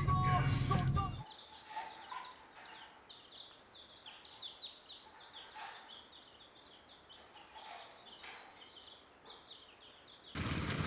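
Music cuts off about a second in. Then a brood of baby chicks peeps, with many short, high peeps overlapping at a low level. Near the end a louder steady rushing noise cuts in.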